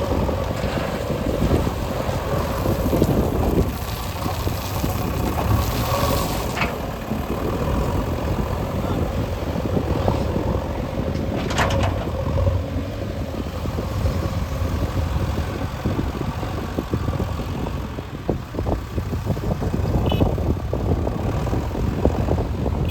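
Heavy diesel construction machinery running steadily with a low engine rumble. Two sharp knocks come about six and twelve seconds in.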